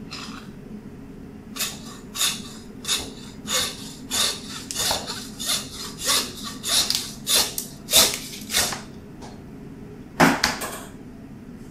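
Hand bone saw cutting through beef bone in a side of beef, about two rasping strokes a second, then the steel saw clattering down onto a stainless steel counter near the end.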